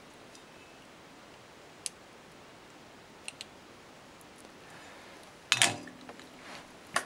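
A few faint clicks from a small circuit board and soldering iron being handled, then a much louder knock and clatter about five and a half seconds in.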